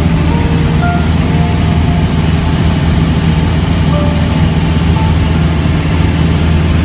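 Steady drone of a light aircraft's engine and propeller, heard from inside the cabin in level flight.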